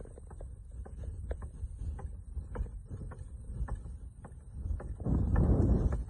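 Wind buffeting a microphone moving alongside at speed: a steady low rumble with scattered light ticks, swelling into a louder gust about five seconds in.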